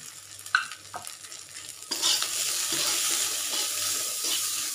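Steel spatula stirring and scraping a ground sweet corn masala around a hot kadhai while the oil sizzles, frying the just-added spices into it. Two light clicks come in the first second. About two seconds in, the sizzle and scraping grow louder and keep on steadily.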